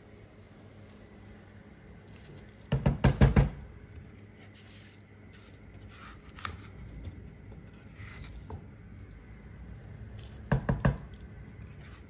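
Wooden pestle knocking against a clay mortar holding pounded crayfish and fresh pepper: a quick run of about six knocks, then three or four more near the end, with a few faint clicks between.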